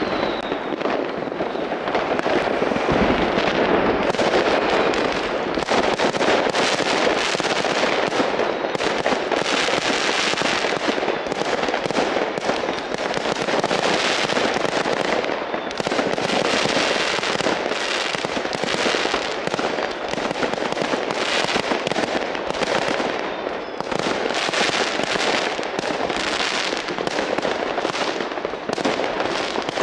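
New Year's Eve fireworks and firecrackers going off in a dense, continuous barrage: countless bangs and crackles overlapping without a break.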